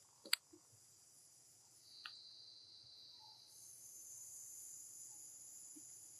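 Steady, high-pitched buzzing of insects, a lower-pitched band joining about two seconds in and the higher band growing louder after that; a single sharp click near the start.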